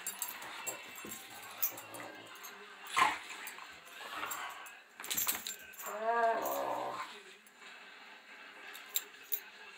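Two Labrador retrievers play-fighting, with play growls, a sharp loud sound about three seconds in, and a drawn-out pitched growl lasting about a second near the middle before things go quieter.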